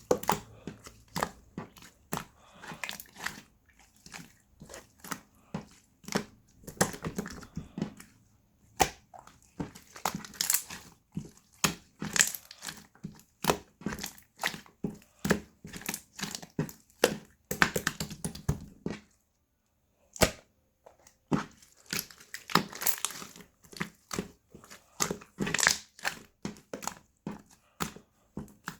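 Slime being squished and poked by hand: a steady run of quick wet clicks and pops, several a second, with a short pause about two-thirds of the way through.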